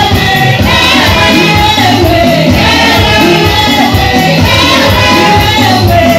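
Loud gospel praise-and-worship music: a group singing over a steady beat.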